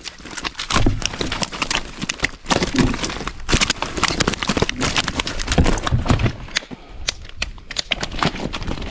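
Freshly caught common carp flapping in a net, an irregular clatter of slaps and splashes with a short lull near the end.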